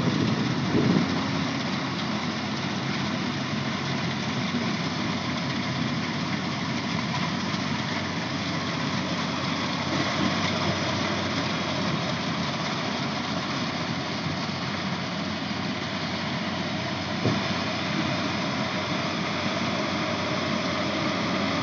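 Rice combine harvester's engine running steadily with a continuous mechanical drone. A few low thumps come in the first second, and one brief knock comes late on.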